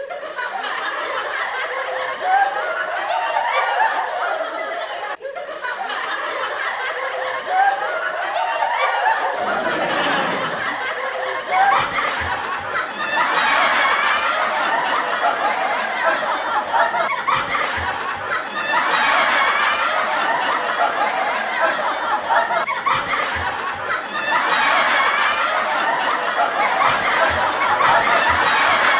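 Many people laughing together, swelling louder in waves about every six seconds, over music.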